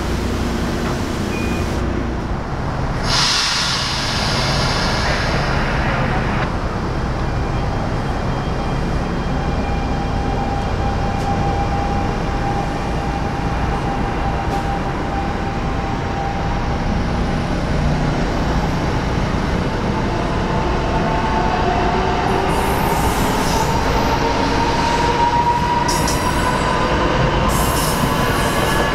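Train running past on the tracks: a steady, loud rumble of wheels on rail, with a whine that rises in pitch about two-thirds of the way through.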